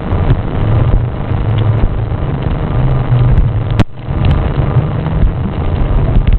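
Dull, steady low rumble of water moving against a diving camera's waterproof housing, with one sharp click about four seconds in.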